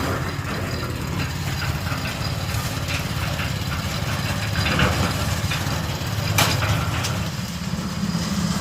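A small engine on a concrete mixer running steadily at a low, even chug, with one sharp knock about two-thirds of the way through.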